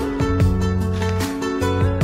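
Background music: a song with guitar, bass notes and a steady beat.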